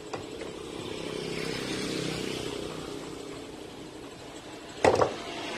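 A vehicle engine running, growing louder over the first couple of seconds and then easing off. A single sharp knock near the end is the loudest sound.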